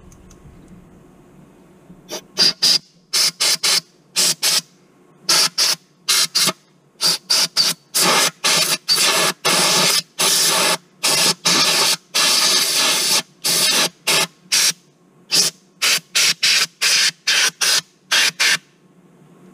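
Compressed-air blow gun with a long nozzle blowing out the mini excavator's swing motor mounting bore. It fires many short hissing blasts, a few held for about a second, starting about two seconds in and stopping just before the end.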